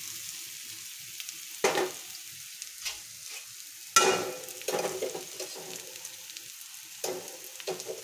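Grated cassava sizzling steadily in hot mustard oil in a metal kadai, with a few sharp clatters against the pan, the loudest about four seconds in.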